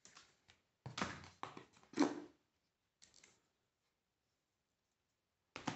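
Handling noise from cardboard and paper packaging: a run of short rustles and knocks as the iPad box's paper documentation sleeve and cardboard tray are moved, the loudest knock about two seconds in, with another brief clatter near the end.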